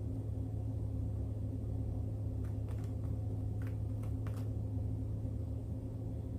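Steady low hum from an appliance or electrical source, with a few faint light taps or clicks in the middle, as from food prep on a counter.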